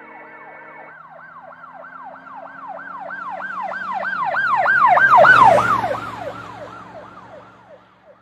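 Emergency vehicle siren in a fast yelp, about four sweeps a second. It grows louder as it approaches, is loudest a little past halfway with a low vehicle rumble underneath, then drops slightly in pitch and fades as it passes. Background music stops about a second in.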